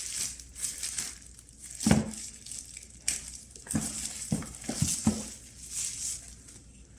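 Plastic packaging crinkling and rustling as the mop pads are unwrapped and taken out, with a few light knocks from handling, the firmest about two seconds in.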